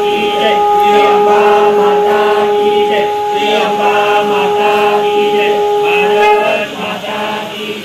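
Voices chanting a devotional mantra over a steady held drone tone. The drone stops about six and a half seconds in while the chanting goes on.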